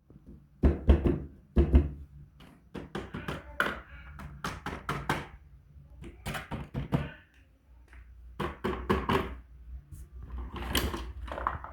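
Toy cars being handled, giving an irregular run of knocks and clacks, with two heavier thuds in the first two seconds.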